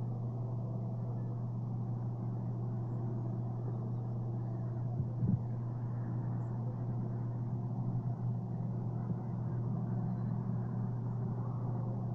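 A steady low mechanical hum, with a brief thump about five seconds in.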